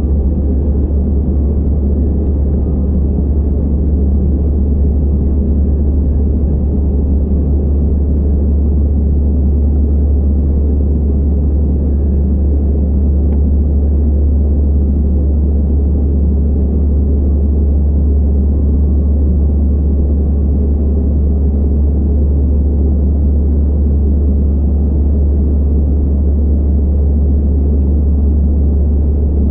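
Steady in-flight cabin noise of an Airbus A320-216 heard from a window seat over the wing: the CFM56 engines and the airflow make an even, deep rumble, with a faint steady high whine on top.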